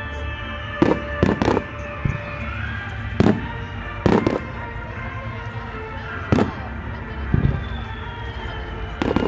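Fireworks shells bursting in a series of sharp bangs, about eight in nine seconds and some in quick pairs, with music playing underneath.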